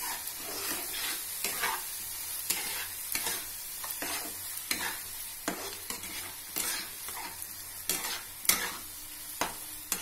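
Spatula stirring and scraping a thick dal-and-masala mixture in a hot kadai, over a steady frying sizzle, with irregular scrapes and taps of the spatula against the pan.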